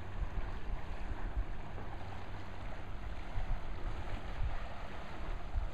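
Wind buffeting the microphone with an uneven low rumble, over a steady wash of small waves lapping the lake shore.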